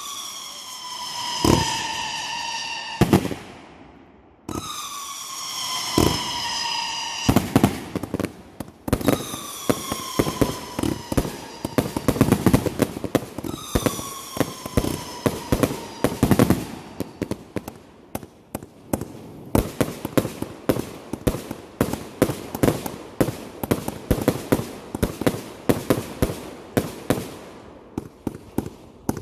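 Fireworks going off: whistling shells that each give a whistle falling slightly in pitch, sharp bangs, and from about a quarter of the way in a dense run of crackling pops.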